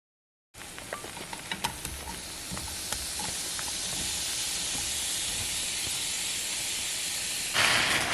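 Food frying in a hot pan: a steady sizzle with scattered pops and crackles at first, growing gradually louder, then jumping louder suddenly near the end.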